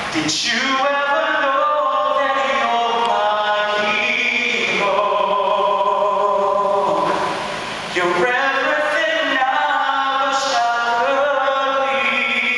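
A priest singing solo, a man's voice holding long notes in phrases, with a short pause between phrases about seven seconds in.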